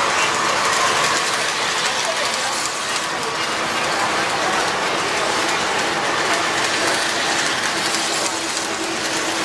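O-gauge three-rail model trains running: a steady rolling clatter of wheels on the track as a pair of model diesel locomotives pulls a string of freight cars past.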